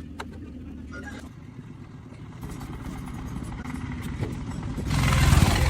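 A vehicle engine running with a steady low hum, growing louder from about halfway through and loudest in the last second, as a vehicle comes close.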